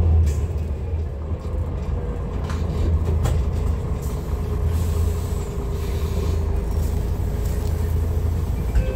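MAN NL323F diesel bus running, a steady low drone with a faint whine that comes in for a few seconds in the middle.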